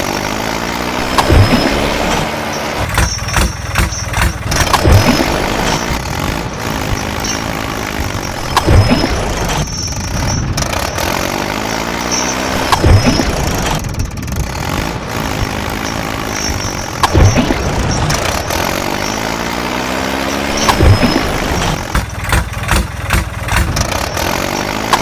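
Tractor engine sound effect played in a loop: an engine starting and revving, repeating about every four seconds with a sharp knock at the start of each cycle.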